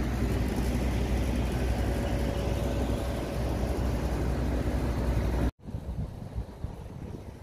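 Wind buffeting the microphone outdoors with a steady low rumble and hiss. About five and a half seconds in it cuts off abruptly and gives way to a quieter, fluttering wind hiss.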